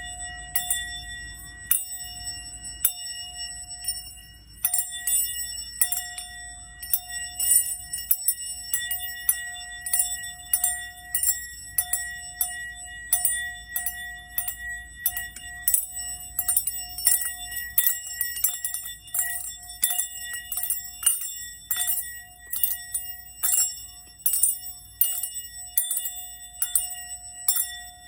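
Singing bowl ringing with a steady, bell-like tone that is sustained for seconds, crossed by many short metallic taps and jingling high notes, about one or two a second, used as a sound-healing clearing.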